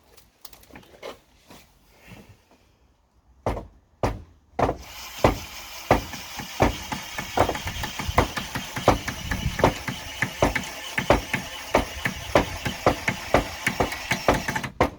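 Power screwdriver or drill driving a screw into the wooden frame: a few knocks, then from about five seconds in a steady whirr with regular knocking about three times a second, which stops suddenly near the end once the screw is home.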